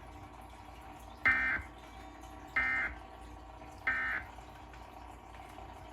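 Emergency Alert System end-of-message data bursts: three short, identical warbling digital tones about a second and a quarter apart, marking the end of the alert.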